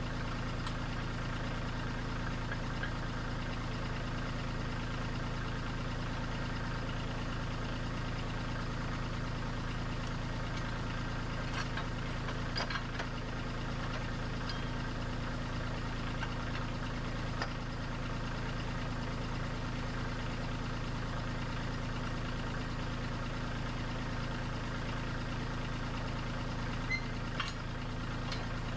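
Kubota diesel engine idling steadily, with a few light clicks around the middle and near the end.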